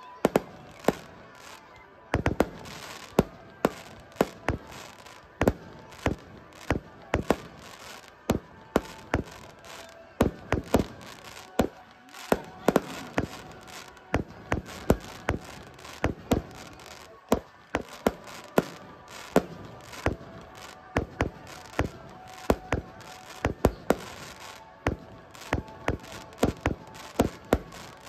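Fireworks display: aerial shells bursting overhead in a rapid, irregular barrage of sharp bangs, about two or three a second.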